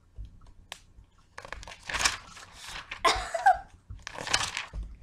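Sheets of drawing paper rustling and crinkling in several short bursts as they are handled and turned over.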